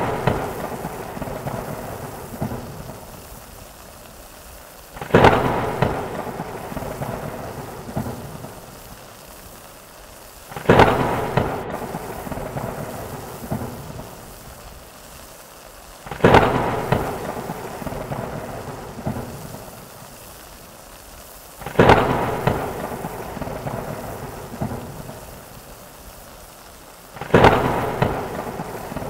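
Thunderstorm sound effect: steady rain with a clap of thunder about every five and a half seconds, each starting suddenly and fading away over a few seconds. The claps come at such even spacing that it sounds like a looped recording.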